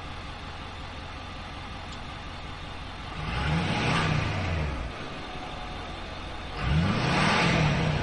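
2008 Ford F-250 Super Duty's engine idling through a Magnaflow aftermarket exhaust, revved twice while standing still: once about three seconds in and again near the end, each rev rising and falling in pitch.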